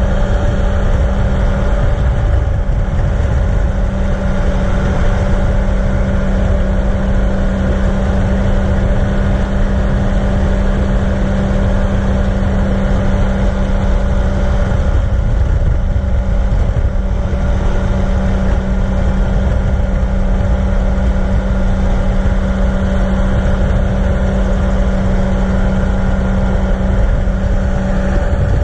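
Gyrocopter in flight: its engine and propeller drone at a steady pitch, with heavy wind rushing on the open-cockpit microphone.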